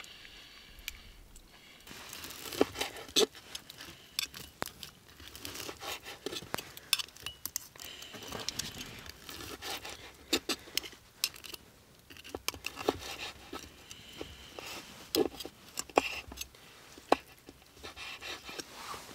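Knife sawing through a grilled steak on a wooden cutting board, with crackly tearing of the meat and sharp taps of the blade and fork on the board, starting about two seconds in.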